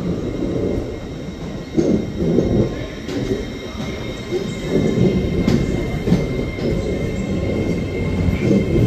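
LNER Azuma train rolling along the platform: a continuous low rumble of wheels and running gear that rises and falls, with a few sharp clicks over the rail and a faint steady high whine.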